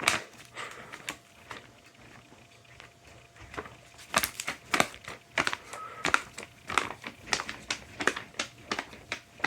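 Irregular clicks and taps in a small room, sparse at first and coming more often from about four seconds in.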